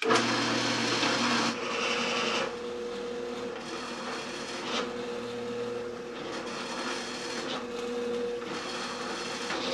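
Drill press running with its bit boring a 5/8-inch hole into a 3/4-inch plywood disc: a steady motor hum under the noise of the cut. It is louder for the first second and a half.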